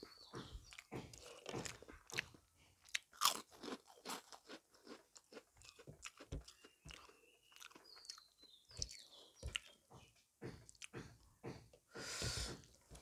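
Close-miked chewing and mouth sounds of someone eating rice and curry by hand: irregular wet smacks and clicks, the loudest about three seconds in, with a brief hiss near the end.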